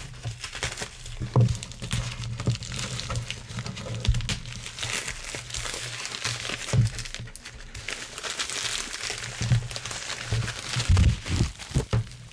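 USPS padded flat rate envelope being handled and turned over by hand, its plastic crinkling and rustling with many small crackles.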